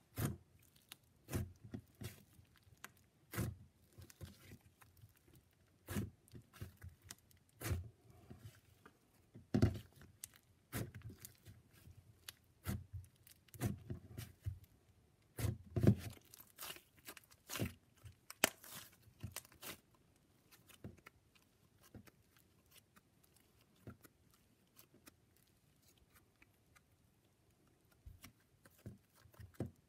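Butter slime crackling and popping in small irregular clicks, its "sizzles", as fingers press, poke and stretch it. The slime is freshly taken out of its container. The crackles thin out for several seconds near the end.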